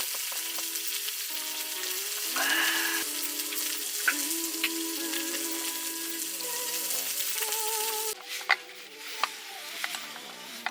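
Shellfish sizzling on a camp grill, a steady hiss with a few sharp clicks, under faint background music. The sizzle cuts off suddenly about eight seconds in.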